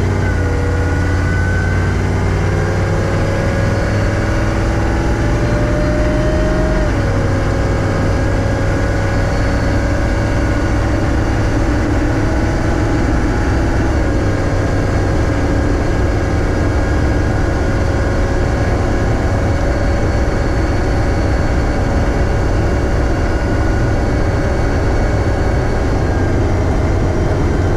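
HMMWV's 6.5-litre diesel and drivetrain droning steadily from inside the cab while driving with the 4L80E's torque converter switched to unlocked, which keeps engine speed a little higher, under a faint high whine. The engine pitch climbs slowly, then drops sharply about seven seconds in and eases slightly again around fourteen seconds.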